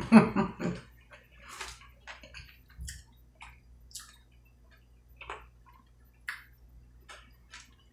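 Close-miked eating sounds: irregular soft, wet clicks and smacks from chewing and from a Doritos chip being scooped through cheese sauce.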